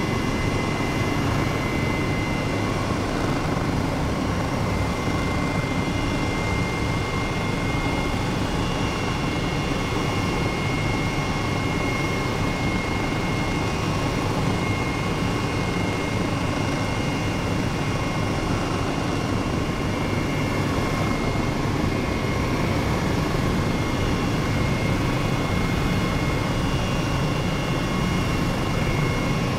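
Helicopter in flight: a steady drone of engine and rotor with a thin, steady high whine over it.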